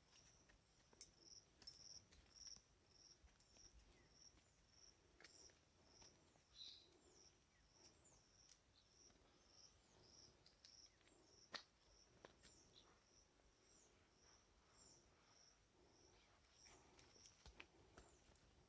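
Near silence, with a cricket's faint high chirping repeating about twice a second and a few soft clicks.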